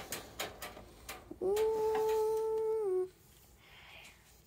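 A child humming one steady held note for about a second and a half, dipping in pitch as it ends, after a few light clicks and taps.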